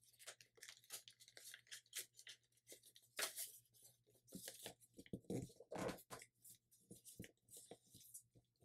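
Faint crinkling and rustling of a folded sheet of paper being tucked and pressed flat by hand, in short irregular crackles, with the loudest crinkle about three seconds in and a run of them around five to six seconds.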